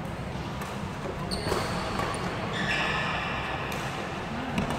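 Badminton rally: sharp racket strikes on the shuttlecock a little over a second in and again near the end, over a steady low hall hum, with a brief high squeak in the middle, typical of court shoes on the floor.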